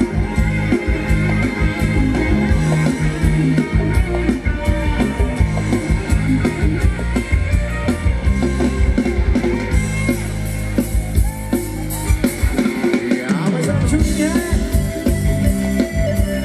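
Live band playing upbeat Thai ramwong dance music over loudspeakers, with a steady drum beat; the bass drops out briefly about thirteen seconds in.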